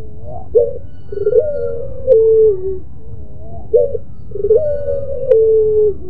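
Caged ringneck dove (puter) cooing over and over: each call is a short rising note followed by a long, drawn-out moaning coo that steps down in pitch, repeating about every two seconds.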